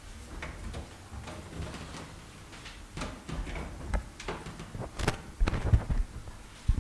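Scattered knocks, rustles and clicks of someone settling into a chair at a desk, then heavier low thumps near the end as a gooseneck desk microphone is handled and bent into place.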